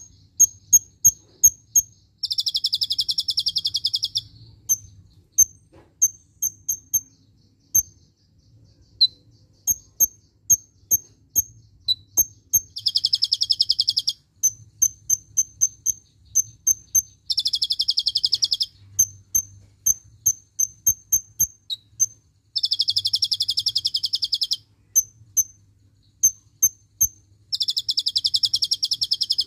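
Kolibri ninja sunbird singing: a run of sharp high chips, several a second, broken every few seconds by a fast buzzy trill about two seconds long, the rapid burst the keeper calls 'tembakan cililin'.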